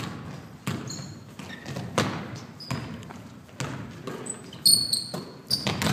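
Basketball dribbled on a hardwood gym floor, several bounces about a second apart, with short sneaker squeaks on the court near the end.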